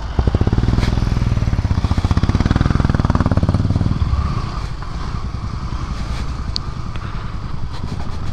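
KTM Duke 200's single-cylinder engine under the rider, pulling hard for about four seconds, then easing off to a lighter, quieter run.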